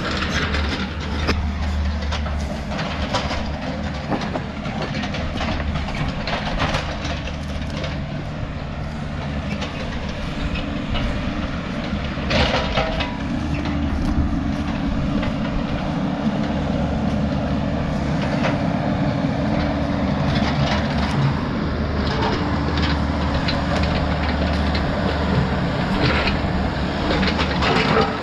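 A heavy-equipment diesel engine running steadily under load, with rip rap stone clattering and scraping as the rock is pushed and smoothed out.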